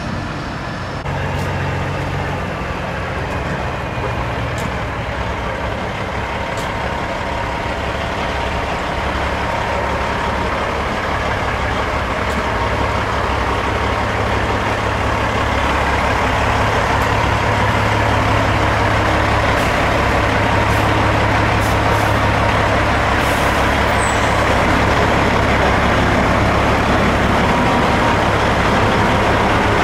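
Semi truck's diesel engine running at low speed as the truck rolls slowly closer, a steady low engine note that grows gradually louder.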